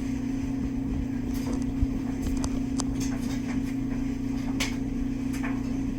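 Steady low mechanical hum, like a motor or appliance running, with a few light clicks and taps scattered through it.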